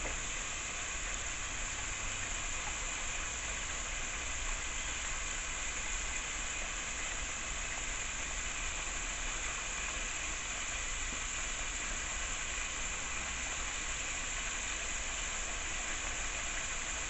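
Buffalo wing sauce sizzling in a pan on the stove, a steady hiss as the cornstarch thickens it.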